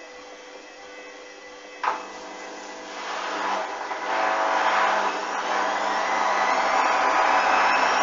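Hoover front-loading washing machine: a relay clicks about two seconds in, then the drum motor starts and the drum turns with the wet laundry, the noise building and the motor's whine rising steadily in pitch.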